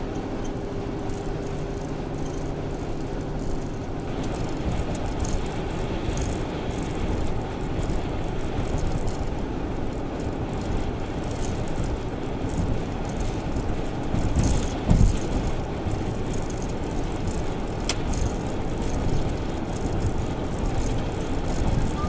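A van's engine and tyres running at road speed, heard inside the cab as a steady rumble with scattered light clicks and knocks, and one low thump about two-thirds of the way through.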